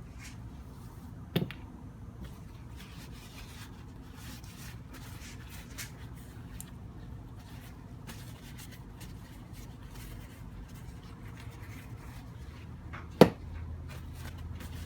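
Small metal parts of an old electric drill's chuck and gear train being handled during disassembly: scattered light clicks and scrapes, with two sharp knocks, one about a second in and a louder one near the end, over a steady low hum.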